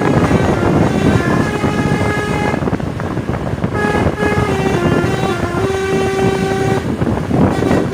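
Tour bus 'telolet' basuri multi-tone horn playing a tune of short notes that step up and down, over loud noise. There is a brief break in the notes about three seconds in, then the tune resumes.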